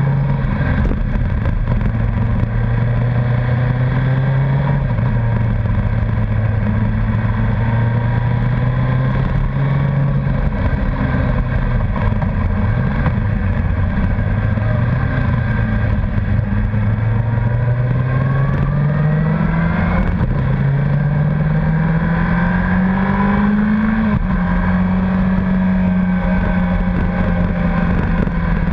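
Honda CBR1100XX Blackbird's inline-four engine running under way, heard from a camera mounted on the bike. Its pitch rises and falls with the throttle through the bends, climbs steadily for several seconds late on, then drops sharply and holds steady.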